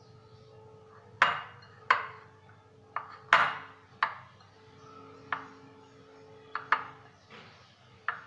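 Glass bowl clinking as a hand mixes a dry, crumbly spice filling in it: about nine sharp taps, irregularly spaced, each with a brief ring, over a faint steady hum.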